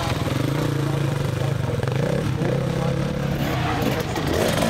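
Enduro dirt bike engine running as the bike rides past close by, its note fairly steady.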